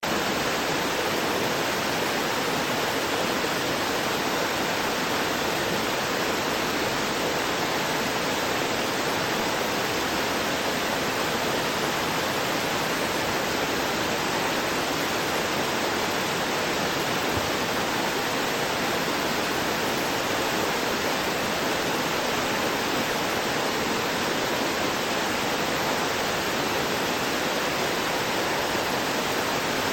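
Waterfall spilling down over rocks: a steady, unbroken rush of falling water.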